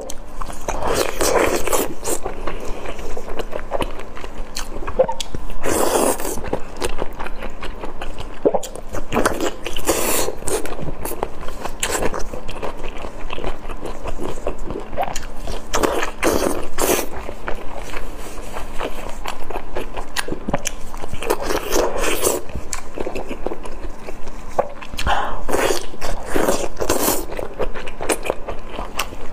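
Close-up mukbang eating sounds: a person biting into and chewing chewy strips of food in a sticky spicy red sauce, in irregular bursts every second or two.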